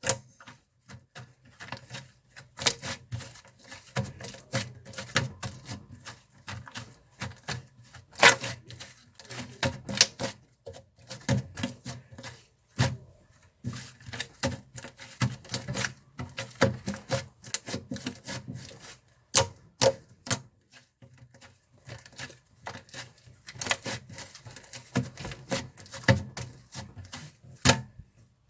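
Cream-textured slime being pressed, squished and stretched by hand, giving an uneven run of sharp clicks and small pops with some soft rubbing between them.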